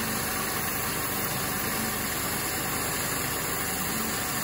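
Milling machine spindle running a half-inch carbide end mill through a light finishing spring pass in a 1018 steel keyway slot, a steady even machining noise. The tool is still taking small chips, which the machinist puts down to tool deflection on the earlier pass.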